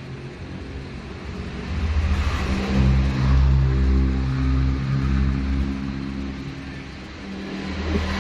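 An engine running, rising in level about two seconds in and easing back near the end.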